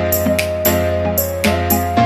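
Background music: an upbeat instrumental track with keyboard and plucked strings over a steady beat.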